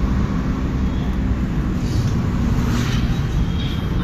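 Steady low rumble of a car's road and engine noise, heard from inside the cabin.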